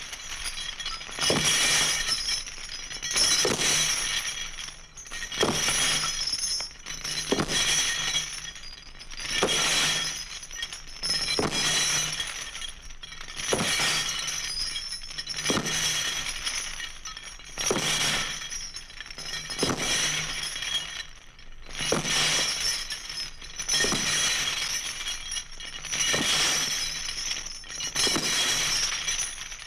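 Glass breaking and shattering over and over, a fresh crash about every two seconds, each trailing off in ringing high-pitched tinkles.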